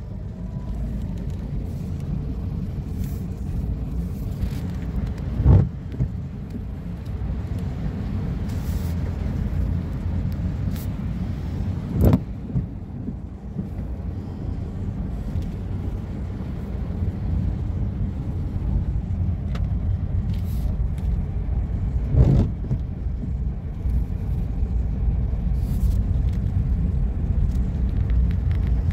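Car moving along a flooded road, heard from inside: a steady low rumble, broken by three loud thumps about five, twelve and twenty-two seconds in.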